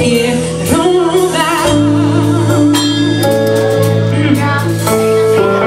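Live gospel song: a woman singing into a microphone with vibrato, backed by another singer and a band with guitar holding steady chords.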